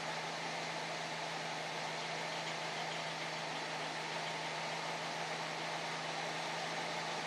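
Nissan SR20DET turbocharged 2.0-litre four-cylinder engine idling steadily at about 800 rpm.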